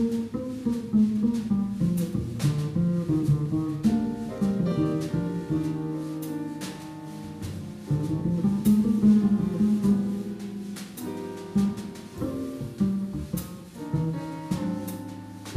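Upright double bass playing a plucked jazz solo, a moving melodic line of single notes, with quiet piano chords and light drum and cymbal strokes behind it.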